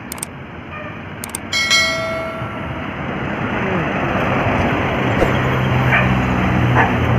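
Large coach bus approaching up the hill, its diesel engine growing steadily louder, with a short horn note about one and a half seconds in that fades away.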